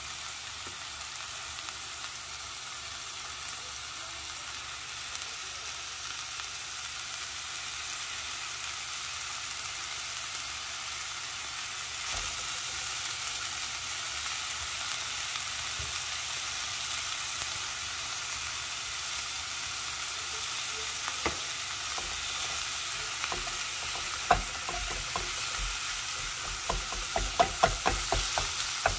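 Raw ground beef sizzling steadily in an oiled nonstick skillet. In the last few seconds a wooden spatula knocks and scrapes against the pan, about three strokes a second, as it breaks up the meat.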